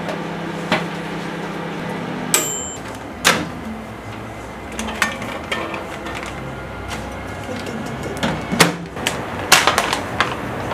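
Microwave oven humming as it runs. About two seconds in it stops with a short ding of its timer bell. Then comes a sharp click as its door is opened, followed by scattered clicks, knocks and rustles of hands handling packaging.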